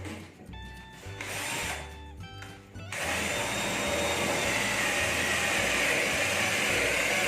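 Background music, then about three seconds in a Ryu RCD12V 12-volt cordless drill starts and runs steadily, louder than the music.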